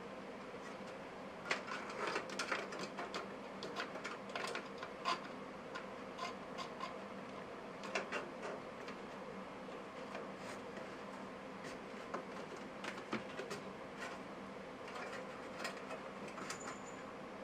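Irregular light clicks, taps and rubs of hard parts being handled while a desktop PC is assembled, over a steady low hum.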